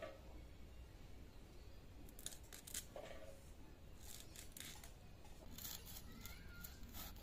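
Hilsa fish being scaled and cut on a bonti, the curved upright kitchen blade: faint irregular scraping clicks as the fish is drawn across the edge.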